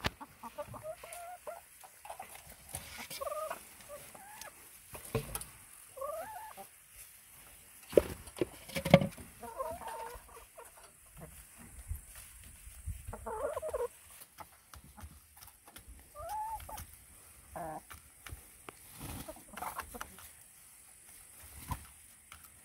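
A small flock of brown hens clucking in short, scattered calls, some rising or falling in pitch. Sharp taps come now and then, the loudest about eight and nine seconds in.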